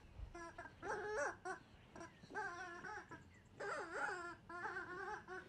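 Squeaky rubber chicken dog toy squawking again and again as a dog bites and chews it: short squeals that bend up and down in pitch, coming in quick clusters.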